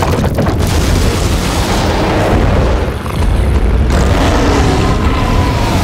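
A giant monster roaring as it lunges, layered over a deep, continuous booming rumble of movie-trailer sound design. There is a brief dip about three seconds in, then it carries on as loud as before.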